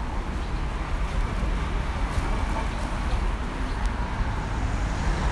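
Steady city road traffic: a continuous low rumble of passing motor vehicles.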